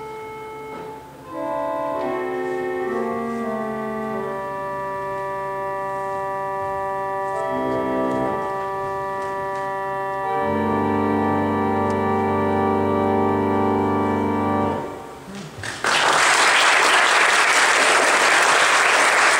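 Estey pump organ (a reed organ) playing slow sustained chords, ending on a louder held chord with a deep bass that cuts off about three-quarters of the way through. Audience applause follows.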